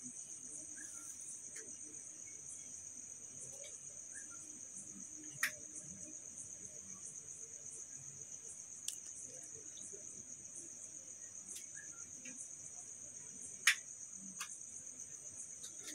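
Steady high-pitched insect trill, faint and continuous, with a few sharp faint clicks, the clearest about five and a half and fourteen seconds in.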